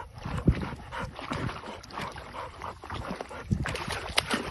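A dog splashing in shallow water, pawing and snapping at the surface, with many irregular splashes and a couple of sharper slaps.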